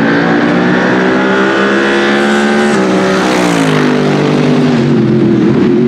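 Mercedes-Benz SLS AMG GT3's naturally aspirated 6.2-litre M159 V8 race engine running hard as the car approaches and passes. Its pitch drops about three seconds in as it goes by.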